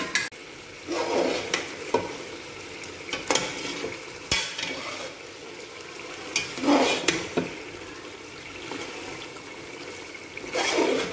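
Chicken pieces being stirred into a frying tomato-yogurt masala in a metal pot. A spoon scrapes and clinks against the pot several times over a steady sizzle, with one sharp click about four seconds in.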